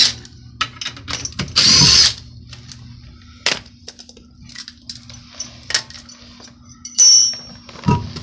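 Impact gun running in one short burst about one and a half seconds in, spinning out a suspension bolt. Scattered light metallic clicks and knocks of tools and the bolt follow, with a bright ringing metal clink about seven seconds in and a dull thump near the end.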